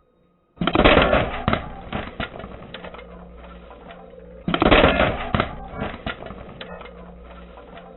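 Brittle objects crunching and cracking as they are crushed, in two bursts of crackling, about half a second in and again about four and a half seconds in, each dying away over a couple of seconds.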